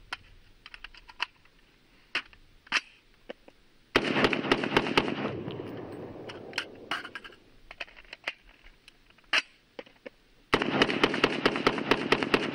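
Bushmaster XM15 AR-15 firing .223 rounds in quick semi-automatic strings. About four seconds in, five fast shots ring out with a long ringing tail. After a few handling clicks for the magazine change, a second, faster string of shots starts about ten and a half seconds in and runs on to the end.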